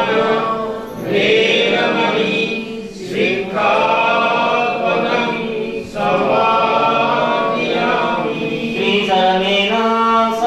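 Buddhist devotional chanting: a monk at a microphone and a seated congregation chanting together in long, drawn-out phrases with brief pauses for breath.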